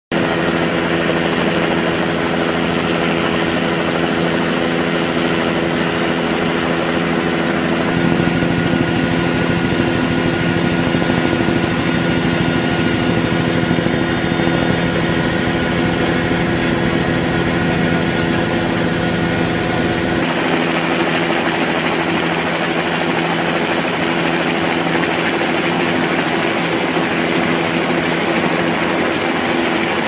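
Steady drone of an aircraft's engine and rotor heard from on board, with several steady held tones over a rushing hiss. The sound changes abruptly twice, about eight and twenty seconds in.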